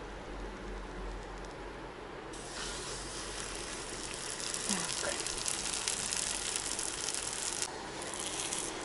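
Naan dough sizzling and crackling in hot oil in a frying pan, starting about two and a half seconds in as the dough goes into the pan and dropping away shortly before the end.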